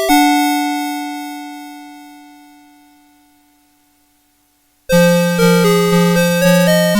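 Electronic melody chip of a CITIZEN Melody Box 30 alarm clock. A final chord rings out and fades away over about four seconds to near silence. About five seconds in, the next tune starts with a melody over a steadily pulsing bass note.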